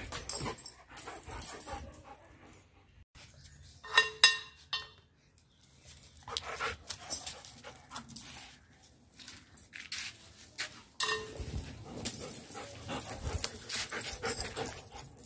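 German Shepherd panting and moving about close by, with short scuffling and handling noises in between.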